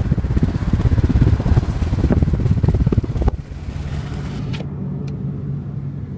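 Wind buffeting and road noise from a moving car, loud through an open side window. After about three seconds it drops suddenly to a quieter, steady hum inside the cabin.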